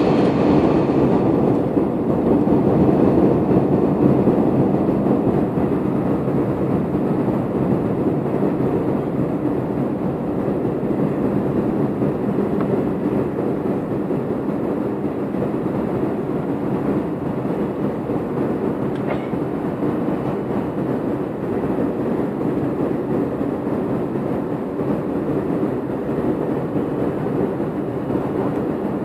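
Steady jet airliner cabin noise beside a turbofan engine in flight: a dense, even rush of engine and airflow with a low steady hum, easing slightly over the first few seconds.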